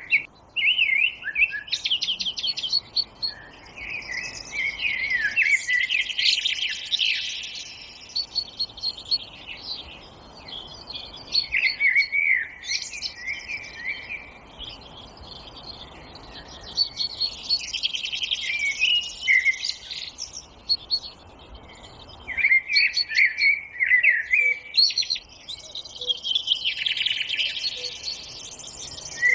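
Songbirds chirping and singing in quick high-pitched phrases that come in waves every few seconds, over a faint steady hiss.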